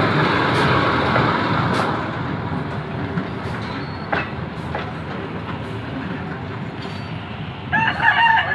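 SVI track-inspection locomotive running past close by, its engine and wheels on the rails loud for the first two seconds, then quieter with a few sharp clicks. Near the end a rooster crows.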